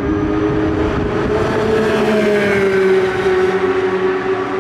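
Sports cars running hard past a grandstand on a race circuit, several engine notes overlapping, one falling in pitch about halfway through as a car goes by.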